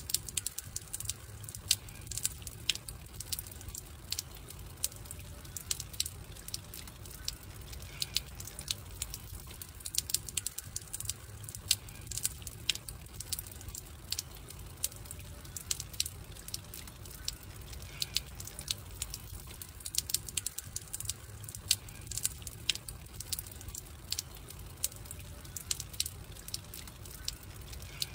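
Wood fire crackling: frequent, irregular sharp pops and snaps over a low steady rumble.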